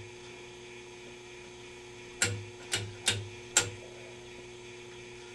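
Steady low hum from the powered-up Admiral 16R11 vacuum-tube television, with four sharp clicks about half a second apart near the middle. The set's audio has cut out and no high-voltage oscillator whine is heard: the picture circuits are not running, and something is failing as the set warms up.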